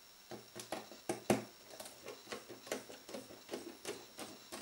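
Faint, irregular light clicks, roughly three a second, as a precision screwdriver turns a small Torx screw out of the plastic case of a Garmin nüvi 250 GPS.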